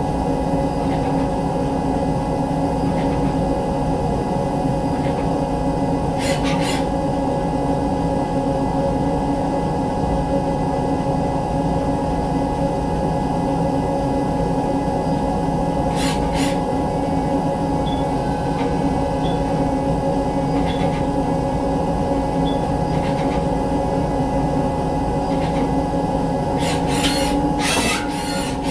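CNC vertical milling machine running, a steady hum of several constant tones from the spindle and drives, with a few short hissing or scraping bursts: once about six seconds in, again around the middle, and twice near the end.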